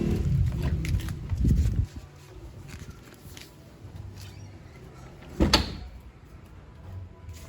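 A low rumble for about two seconds, then a few soft clicks and one sharp knock about five and a half seconds in.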